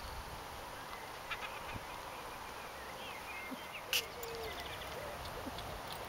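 A basset hound whining in short repeated cries that bend down and back up in pitch, starting about four seconds in, over faint birdsong. There is a single sharp click just before the whining starts.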